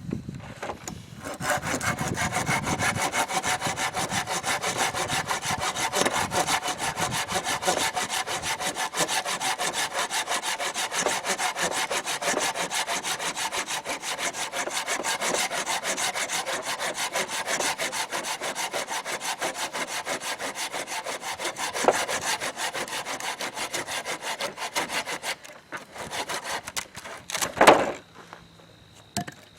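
Folding hand saw, a Silky Gomboy, cutting through firewood in quick, steady back-and-forth strokes that stop a few seconds before the end. A single sharp knock of wood follows shortly after.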